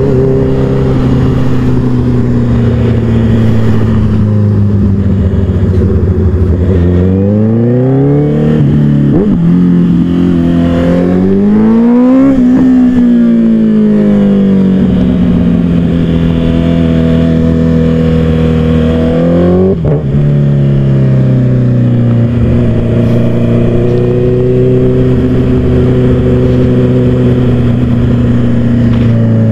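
Honda CBR motorcycle engine running on the move. Its note holds steady, then climbs in pitch about a quarter of the way in with a short break during the climb, sinks slowly, dips sharply about two-thirds through, and settles back to a steady note.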